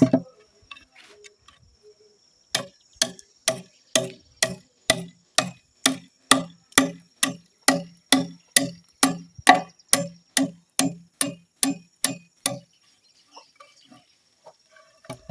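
A tool striking wood in a steady run of blows, a little over two a second, each with a short low ring. The blows start about two and a half seconds in and stop a few seconds before the end.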